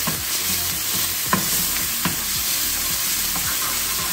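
Chopped onion and garlic paste sizzling in hot oil in a frying pan while a wooden spoon stirs them, scraping and knocking against the pan three times.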